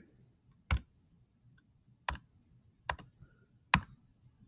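Four single sharp clicks, roughly a second apart.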